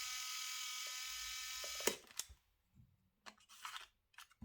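Samsung Fino 700s compact camera's built-in motor rewinding 35mm film into its cassette: a steady whine that stops abruptly with a click about two seconds in, followed by a few faint handling clicks.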